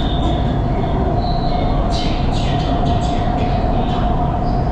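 Changzhou Metro Line 1 train running at speed on an elevated line, heard from inside the car: steady wheel and running rumble with a steady hum over it.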